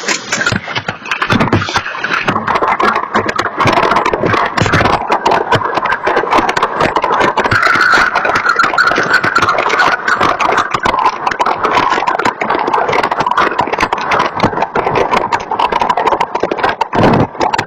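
Heavy hail pelting down: a dense, continuous clatter of hailstones striking hard surfaces, heard through a Nest security camera's microphone.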